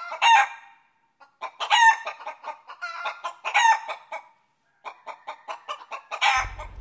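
Chickens clucking in quick short notes, about four or five a second, with a few louder, drawn-out squawks among them.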